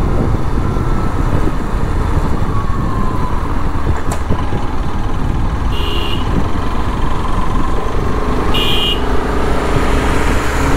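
A Bajaj Pulsar RS200's single-cylinder engine running at riding speed under steady wind noise on the camera microphone. Two short horn beeps come about six and nine seconds in.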